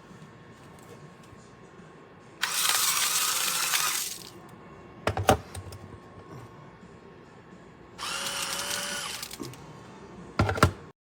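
Home Hero electric salt and pepper grinder's motor running in two bursts of about a second and a half each, grinding. Sharp knocks follow each burst, once in the middle and again near the end.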